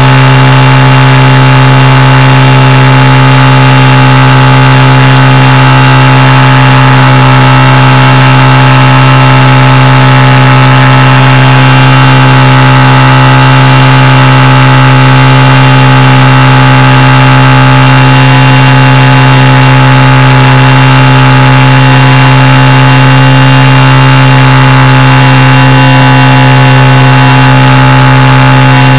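Flyzone Tidewater RC seaplane's electric motor and propeller running at steady taxiing throttle, picked up loud by the onboard camera's microphone. It is one unchanging drone at a fixed pitch.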